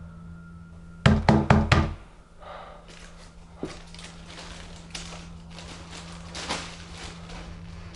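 Four quick, loud knocks about a second in, followed by the crinkling rustle of a plastic carrier bag being handled.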